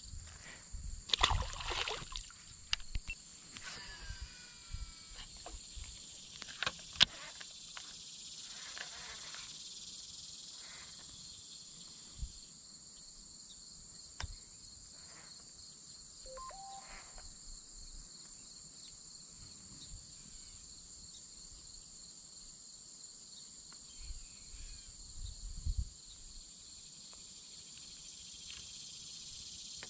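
Steady high-pitched drone of insects, with a few short knocks and clicks over it in the first several seconds and a sharp click about seven seconds in.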